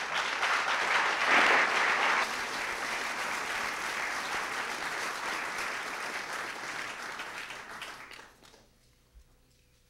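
Audience applause, loudest about one to two seconds in and dying away near the end.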